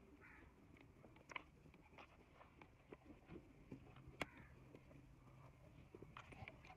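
Near silence: faint ambience with a low steady hum and a few sparse faint clicks, the sharpest about four seconds in.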